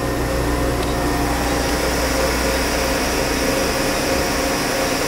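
Spindle of a 1996 Okuma Cadet LNC-8 CNC turning center running at 2,000 RPM in its high gear range, with no cutting load: a steady machine hum with several held tones.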